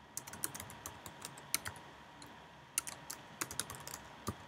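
Computer keyboard typing: quick, uneven keystrokes as an email address is entered, with a pause of about a second midway.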